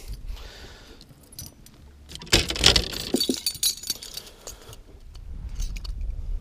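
Metal lure hardware jangling and clicking as a bucktail is handled and unclipped from a wire leader: spinner blade, treble hooks and snap rattling together. The clatter is densest and loudest from about two and a half seconds in, with scattered single clicks around it.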